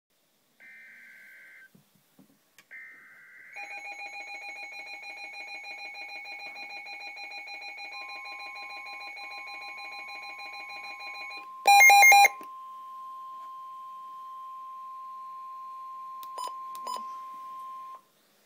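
Emergency Alert System flood-warning broadcast opening with two short bursts of warbling SAME data header. A rapidly pulsing electronic alarm follows, joined partway through by a steady single-pitch alert tone. A loud half-second buzz comes about twelve seconds in, and two clicks come near the end.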